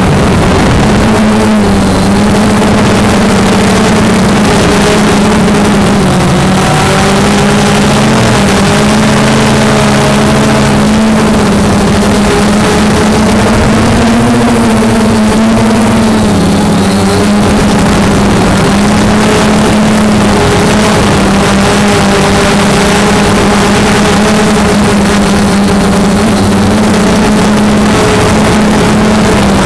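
Motors and propellers of a small drone heard from on board. They make a steady, loud hum whose pitch wavers slightly and shifts now and then as the craft holds and drifts.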